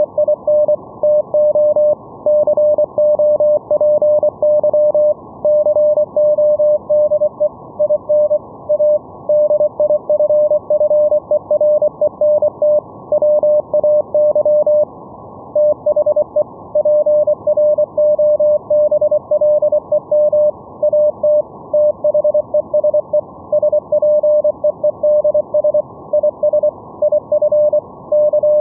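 Morse code (CW): a single mid-pitched tone keyed on and off in dots and dashes, received as VLF radio through an SDR receiver's audio over a steady band of hiss. The keying pauses briefly about halfway through.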